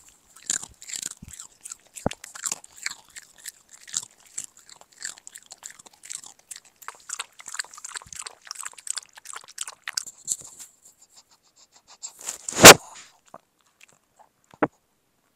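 Shih Tzu lapping water from its bowl right at a clip-on microphone: a long quick run of wet clicking laps. About twelve seconds in comes a single short, very loud burst on the microphone, the loudest sound, then one faint short sound.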